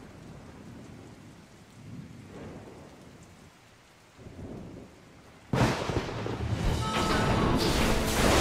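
Rainstorm soundtrack: steady rain with low swells of rumble, then a sudden loud thunder-like boom about five and a half seconds in that keeps rumbling. Music comes in near the end.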